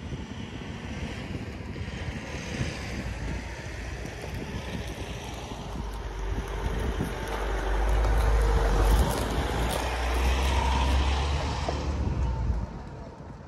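Vehicle driving on a rough unpaved mountain road: a steady engine and tyre rumble with wind on the microphone. It grows louder through the second half, then drops off sharply near the end.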